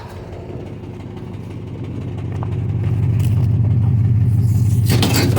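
An engine running steadily, growing louder over the first three seconds and then holding level, with a short rushing noise near the end.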